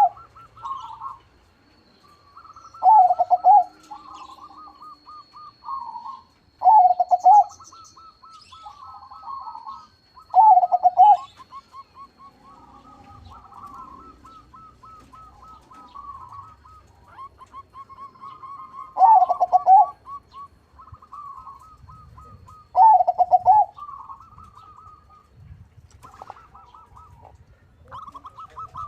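Crossbred zebra dove (perkutut) singing: about six loud, short cooing phrases a few seconds apart, with softer, quick rippling coo trills running between them.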